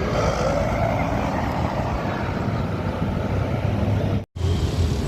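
Road traffic with heavy vehicles, such as buses, running by close to the microphone: a steady, loud engine and tyre rumble. The sound cuts out completely for an instant a little after four seconds in.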